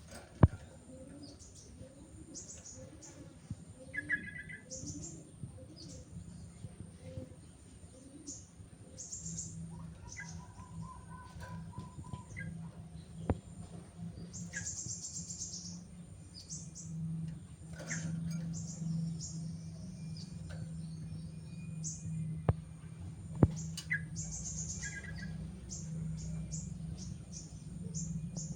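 Sooty-headed bulbul calling in short bursts among many quick, high bird chirps. A steady low hum comes in about a third of the way through, and a few sharp clicks sound, the loudest just after the start.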